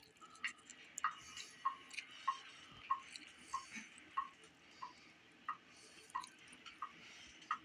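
Lemon juice dripping through a small kitchen strainer: faint, evenly spaced plinks, about one every two-thirds of a second.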